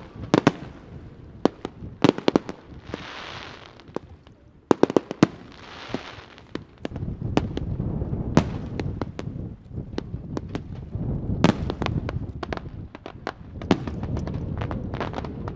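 Fireworks display: sharp bangs of aerial shells bursting, with two stretches of hiss about three and six seconds in. From about seven seconds in, the bangs come thick and overlapping over a continuous rumble, as a barrage of shells goes off together.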